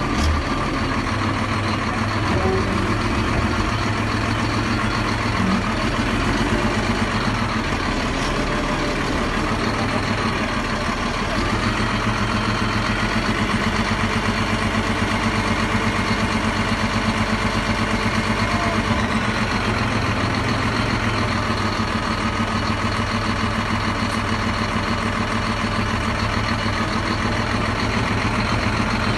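Terex TA400 articulated dump truck's diesel engine idling steadily.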